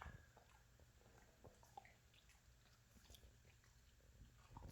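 Golden retriever chewing a snack: faint wet chewing with scattered small clicks, a little louder near the end.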